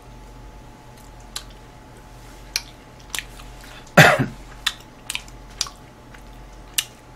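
Close-miked chewing of chop-steak beef, with scattered sharp wet mouth clicks. About four seconds in comes one short cough behind a hand over the mouth, the loudest sound.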